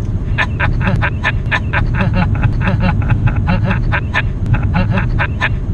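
People laughing inside the car, a quick run of breathy ha-ha pulses, over the steady low sound of the Lamborghini Gallardo's V10 engine in the cabin.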